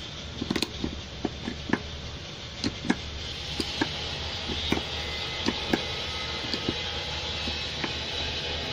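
Irregular small clicks and taps of parts being handled as a sleeve and lock ring are fitted by hand onto the piston of a vacuum brake booster, about a dozen in all, over a steady background hum.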